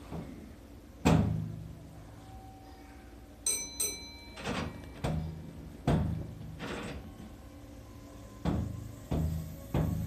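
Meitetsu 3500 series electric train pulling away, heard from the driver's cab: a heavy thump about a second in, two short high electronic beeps at about three and a half seconds, then a run of sudden clunks that come closer together as the wheels pass over rail joints while the train gathers speed.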